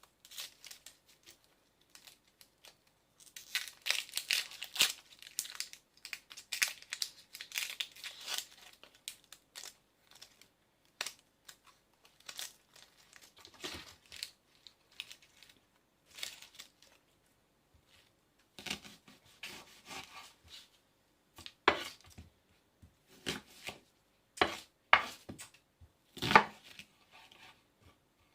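Tearing and crinkling handling noises for several seconds, then a run of scattered sharp knocks.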